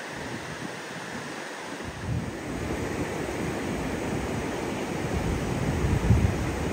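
Surf breaking and washing up the beach, with wind buffeting the microphone. The buffeting comes in about two seconds in and grows stronger.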